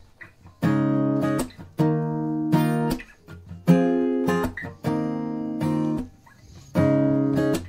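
Background music: an acoustic guitar strumming chords, each chord struck sharply and left to ring for about a second before the next.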